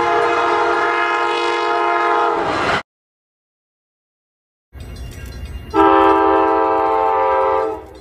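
Amtrak Budd Metroliner cab cars' Nathan K5LA five-chime air horns sounding twice. The first is a steady chord of nearly three seconds that cuts off abruptly. After a silent gap, a train rumbles past and a second chord of about two seconds sounds.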